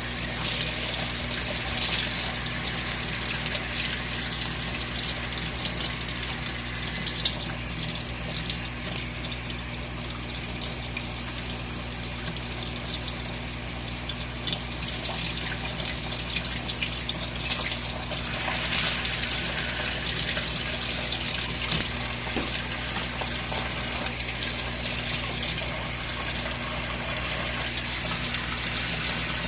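Water running steadily in a small RV washing machine, over a low steady hum from its drain pump.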